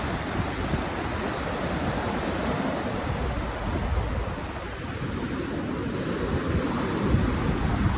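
Surf breaking and washing up a sandy beach in a steady wash, with wind rumbling on the microphone.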